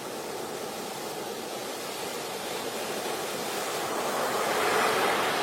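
Rushing water: a steady, even roar of water noise that grows somewhat louder over the last couple of seconds.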